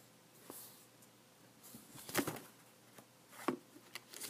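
Soft, scattered rustles and taps from a paperback book being handled close to the microphone, the loudest about two seconds in.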